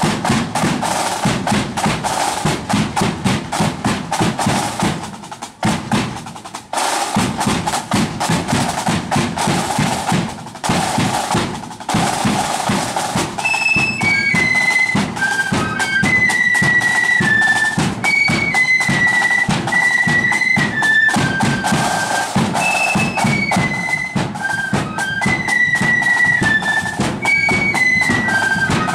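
Marching flute band. Snare and bass drums beat a marching rhythm on their own, with a short break about five seconds in. About halfway through, flutes come in, playing a high melody over the drums.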